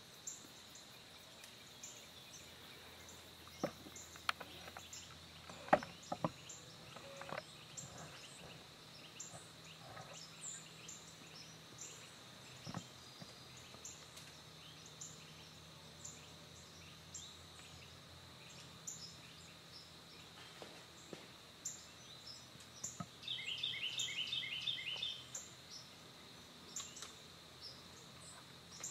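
Faint background ambience with scattered short bird chirps throughout. There are a few faint clicks in the first several seconds, and near the end a rapid run of repeated chirping notes lasting about two seconds.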